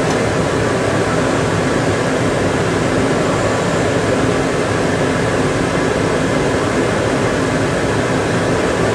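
Steady machine noise, an even whirring hum that runs unchanged with no breaks or knocks.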